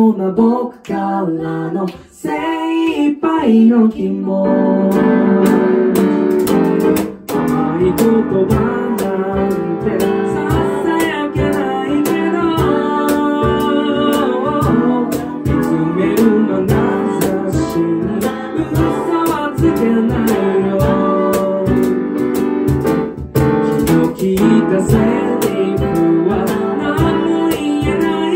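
Small band playing a song: male and female voices singing over steelpan, piano and cajon. The first few seconds are sparse singing, then the full band comes in about four seconds in.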